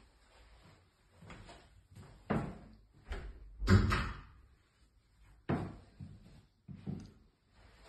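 A handful of separate knocks and thumps, about four, the loudest about three and a half seconds in, which PANN files under doors and cupboards.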